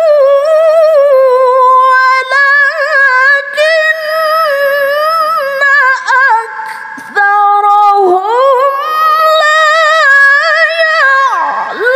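A woman's melodic Quran recitation (tilawah), sung into a microphone: long drawn-out notes with quick wavering ornaments that climb and fall, broken by short pauses about six and seven seconds in.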